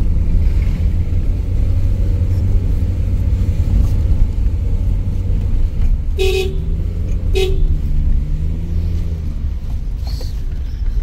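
A car's engine and road rumble run steadily on a steep uphill drive, and a car horn toots twice, short and about a second apart, a little past the middle.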